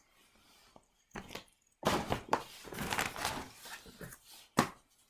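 Rustling and knocking as things and packaging are handled and moved about, ending in one sharp knock about four and a half seconds in.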